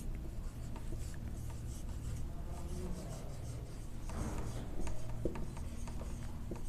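Whiteboard marker rubbing across a whiteboard in short scratchy strokes as a word is written, a little louder about four seconds in, over a steady low hum.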